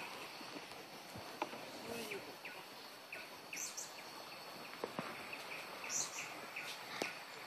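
Tropical forest ambience: short high chirps repeat on and off over a steady hiss, with a few scattered sharp clicks.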